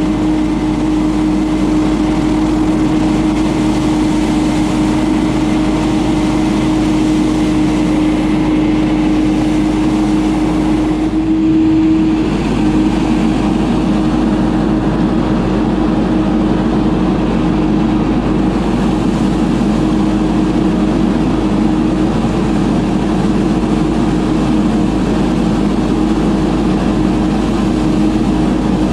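FERRIS FB2000 Hurricane stand-on debris blower running at working speed: its Briggs & Stratton Vanguard engine hums steadily under a loud rush of air from the blower fan. About twelve seconds in the hum briefly swells and rises a little in pitch before settling again.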